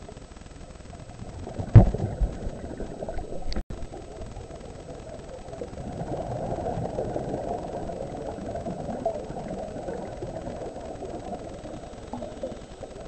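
Muffled underwater noise heard through a GoPro-type camera's waterproof housing, with a sharp knock on the housing about two seconds in. A brief break near four seconds where the footage cuts, then a louder rushing stretch in the middle.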